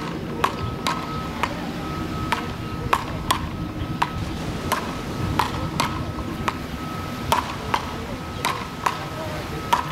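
Wooden beach paddles hitting a small rubber ball back and forth in fast rallies: sharp clacks at an uneven pace, about two a second, over a steady low background rumble.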